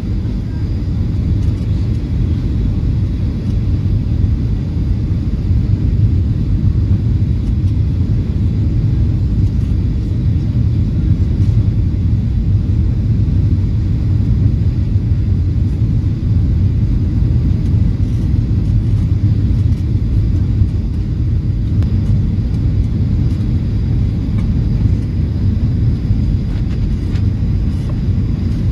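Steady low rumble of a jet airliner heard from inside the passenger cabin: engine and airflow noise at a constant level.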